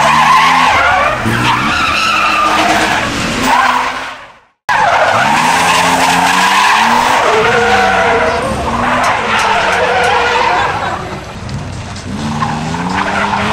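BMW E30 drifting: its tyres squeal and scrub as the engine revs rise and fall through the slides. The sound drops out abruptly for a moment about four and a half seconds in, then picks up again.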